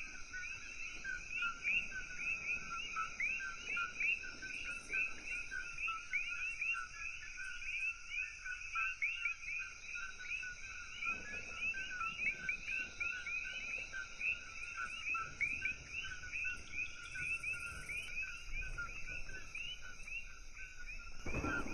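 A dense chorus of coquí frogs, many overlapping two-note "co-quí" calls: a lower note followed by a higher, rising one, repeated continuously.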